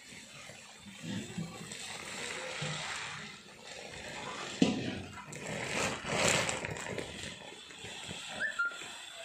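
White granules pouring from a sack onto a heap, a steady hissing rush that swells in the middle, with one sharp knock about four and a half seconds in.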